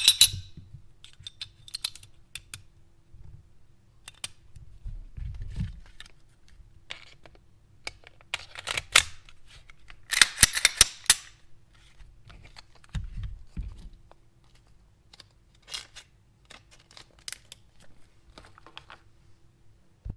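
Clicks and clatter of a Glock 34 Gen 5 pistol being reassembled by hand: the slide, barrel and recoil spring handled and the slide fitted back onto the frame. A sharp click comes about nine seconds in, and the loudest run of clicks about ten to eleven seconds in.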